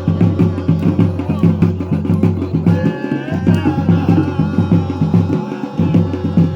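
Garhwali jagar music: a fast, driving drum rhythm with close, even strokes, and a short wavering melodic phrase about three seconds in.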